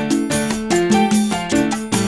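Background music with a steady beat and plucked or keyed notes, in a salsa style.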